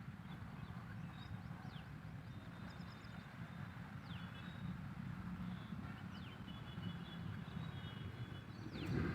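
Wild birds calling outdoors: short high chirps that sweep downward, about one a second, with a few brief trilled notes, over a steady low rumble. A louder brief noise comes right at the end.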